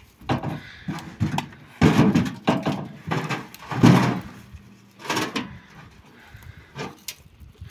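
Heavy wooden log rounds being shifted and lifted on a metal trailer bed: a series of knocks and scrapes of wood against wood and metal, loudest about two and four seconds in.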